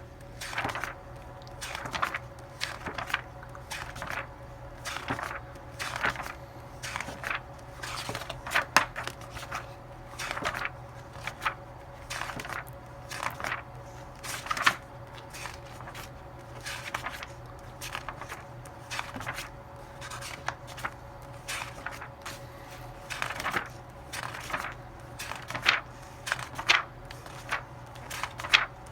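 Irregular rustling and clicking handling noise, many short knocks and scrapes a few times a second, over a steady low electrical hum.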